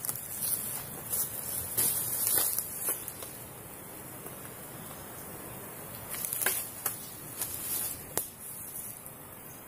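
Footsteps crunching through dry leaf litter and bamboo twigs: a run of irregular crackles and snaps in the first three seconds and again from about six to eight seconds in, with a faint steady hiss between.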